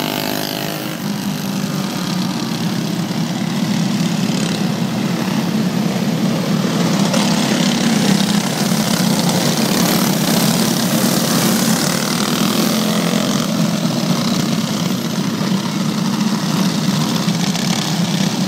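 A pack of racing karts with Briggs & Stratton Animal single-cylinder four-stroke engines running on the track, their engines blending into one continuous drone.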